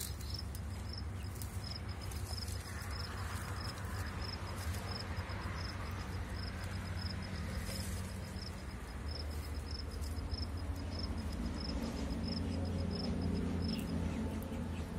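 A cricket chirping steadily, short high chirps repeating about one and a half times a second, over a low steady rumble and a few faint clicks.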